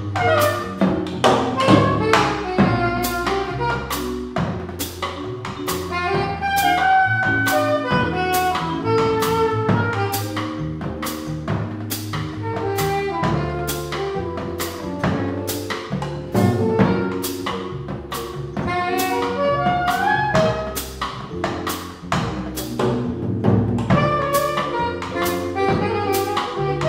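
Small jazz combo playing live: a drum kit keeping a steady beat with evenly spaced cymbal and drum strokes, an upright double bass underneath, and an electric keyboard playing melodic lines.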